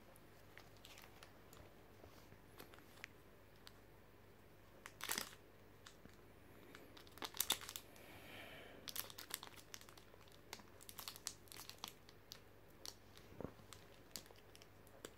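Foil wrapper of a Pokémon TCG booster pack crinkling and tearing as it is pulled open by hand. It is quiet at first, then gives faint, scattered crackles from about five seconds in, which grow thicker in the second half.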